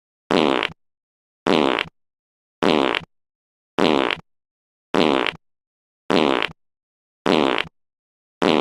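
A fart sound effect played in a loop: the same short fart repeats about every second, eight times, with dead silence between each.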